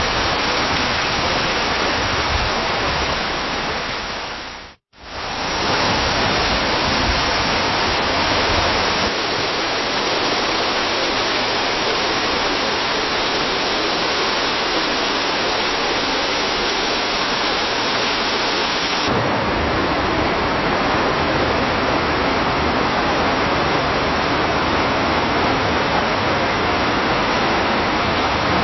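Steady rain falling in a forest, a dense even hiss. It fades out and back in about five seconds in, and its tone shifts slightly twice later as one rain recording gives way to the next.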